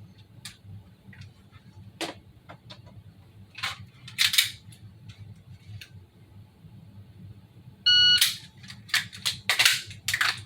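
Airsoft pistol magazine reload: scattered plastic and metal clicks and clacks as the magazine is dropped and a fresh one seated, with a brief ringing tone about eight seconds in and a cluster of louder clacks in the last few seconds.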